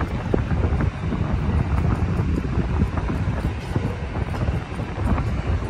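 Gusty wind buffeting the microphone, a heavy uneven rumble, over the sound of a diesel passenger train standing at the platform.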